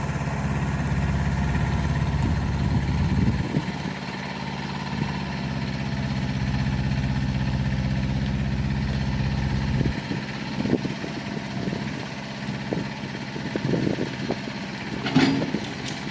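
An engine idling steadily, then shutting off about ten seconds in; scattered knocks and thumps follow.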